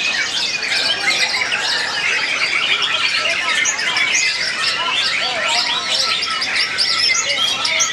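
White-rumped shamas (murai batu) singing, several at once: a dense, unbroken stream of quick whistles, chirps and harsher squawky notes overlapping each other.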